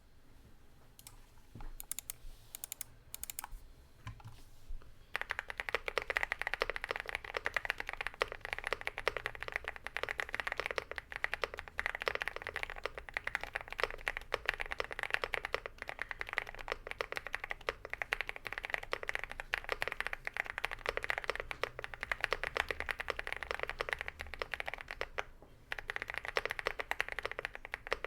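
Typing on a modded HI75 mechanical keyboard with lubed Vertex V1 switches and ABS Cherry-profile keycaps. A few scattered keystrokes, then rapid continuous typing from about five seconds in, with a brief pause near the end before it resumes.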